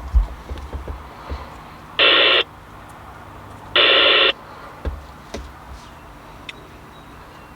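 CB radio speaker giving two short bursts of static, each about half a second long, the first about two seconds in and the second about four seconds in. A few faint low thumps come in the first second.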